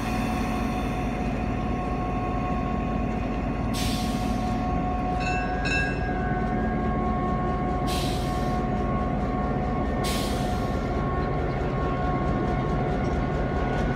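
EMD GP7 diesel locomotive's 16-cylinder 567 two-stroke engine running steadily with a held whine as the locomotive rolls slowly along the track. Short bursts of air hiss sound about four, eight and ten seconds in.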